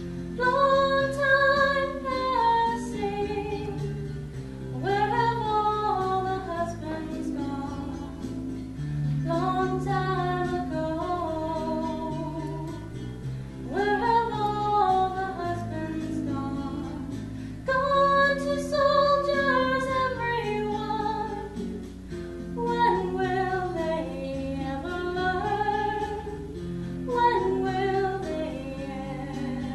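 A woman singing a slow song in long held phrases, with guitar accompaniment underneath.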